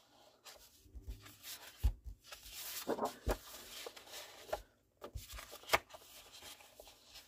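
Sheets of patterned designer paper being flipped over and fanned out by hand: a series of short paper rustles and soft taps.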